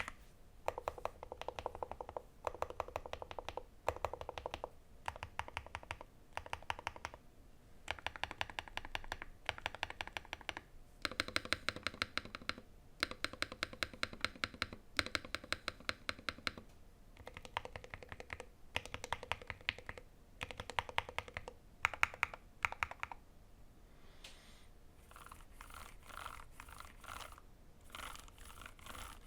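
Custom 60% keyboard with Gateron Magnetic Jade Max magnetic switches and PBT keycaps, typed on in quick bursts of keystrokes with short pauses between them. For the last few seconds a fainter, more even run of clicks follows.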